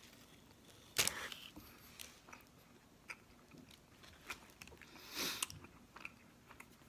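A person bites into a toasted sub sandwich, with a loud crunch of the toasted bread about a second in, then chews with small scattered clicks and crackles.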